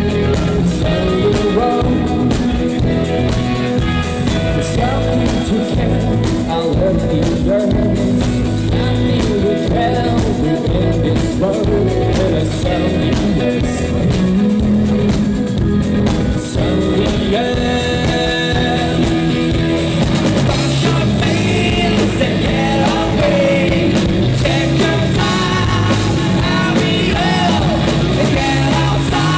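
Live rock band playing loud and steady through the PA, with electric guitar, bass and drums, and a singer's vocals over them.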